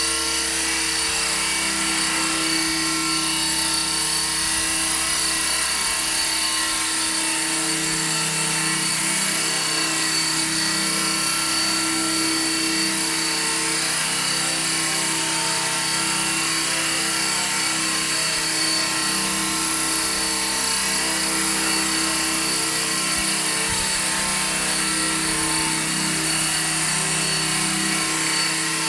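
E-flite Blade 400 electric RC helicopter hovering, its electric motor whining steadily with the whir of the spinning rotor blades.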